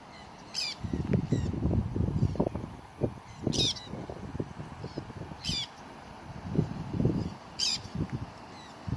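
Parrot giving short, shrill squawks about five times, a second or two apart, over irregular low rumbling and knocking noise that is louder than the calls.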